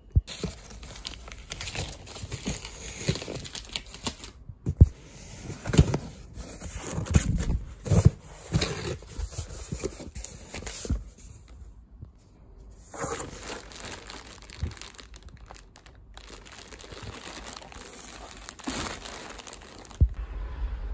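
Clear plastic poly bags crinkling and crackling as packaged T-shirts are handled in a cardboard box, in irregular bursts with sharp crackles and a short pause about halfway through.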